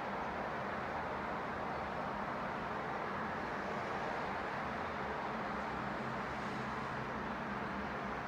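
Steady distant outdoor ambience: an even wash of noise with a faint low hum underneath.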